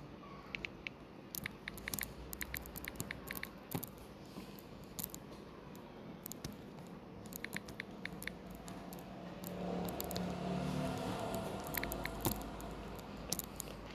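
Light, quick taps of typing on a smartphone's on-screen keyboard, in irregular runs of clicks.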